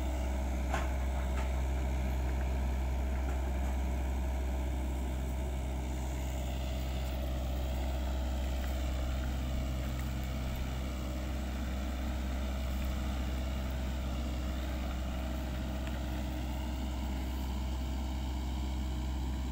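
Sany SY55C mini excavator's diesel engine running steadily.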